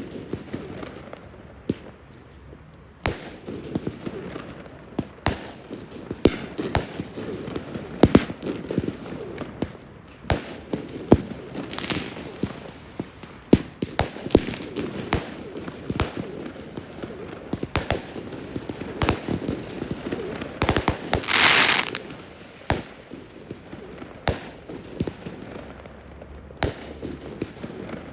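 A fireworks display: shells bursting in an irregular run of sharp bangs over a low, continuous rumble. About three quarters of the way through there is a louder rush of dense noise lasting about a second.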